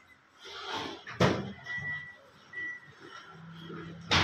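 Two sharp knocks, one about a second in and a louder one near the end, amid quieter clatter, with a low steady hum coming in past the middle.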